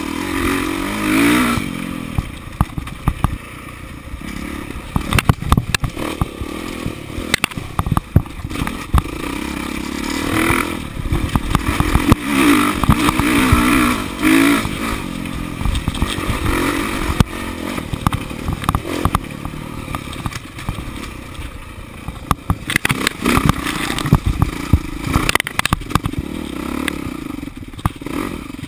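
Dirt bike engine running hard, revving up and falling back repeatedly as the rider accelerates and shuts off along a rough trail, with frequent clattering knocks from the bike over the bumpy ground.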